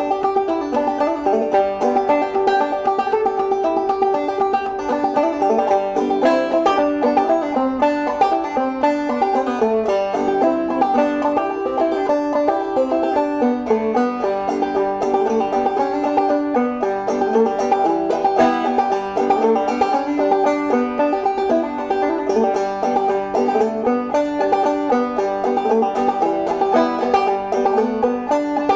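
Steel-strung 11-inch Brooks Spartan all-walnut banjo with a rolled brass tone ring, goatskin head and a maple, ebony-topped Elderly Instruments bridge, played solo as a steady, unbroken tune of quick plucked notes.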